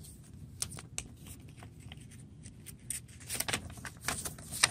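Folded paper pamphlet being unfolded by hand: scattered crisp rustles and crackles of paper, growing busier and louder near the end as it opens out.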